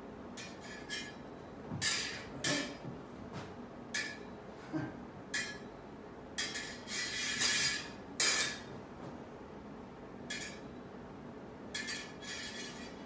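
Steel smallsword blades in engagement, clicking and scraping against each other: a string of light metallic clinks, with a longer sliding scrape of blade along blade about six to eight seconds in and another near the end.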